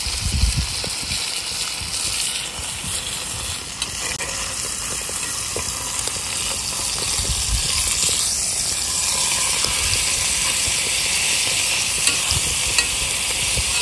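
Beef steak frying in a hot cast-iron skillet: a steady sizzle.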